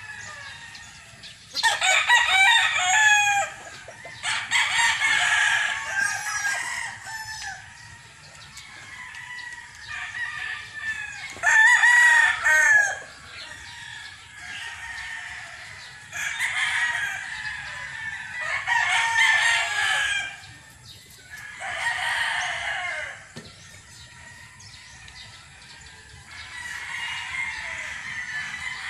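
Gamefowl roosters crowing repeatedly: about seven crows of one to two seconds each, spaced a few seconds apart.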